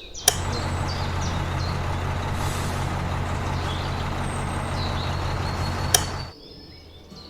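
A heavy vehicle's engine runs steadily with a low hum, starting with a sharp click about a third of a second in and cutting off with another click at about six seconds.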